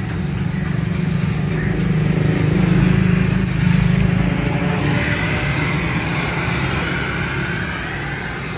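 A steady low machine hum, with a hiss over it that grows stronger about five seconds in.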